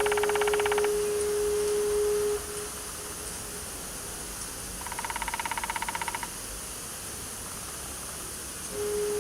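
A soft held musical note fades out about two seconds in and returns near the end, over a steady hiss of ambience. Twice, at the start and again around the middle, an animal gives a rapid buzzing trill lasting about a second.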